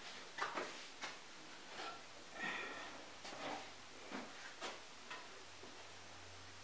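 Scattered light clicks and knocks of kitchen handling: a small metal saucepan of melted butter is picked up and set down and a utensil worked in it, with one brief ringing clink about two and a half seconds in.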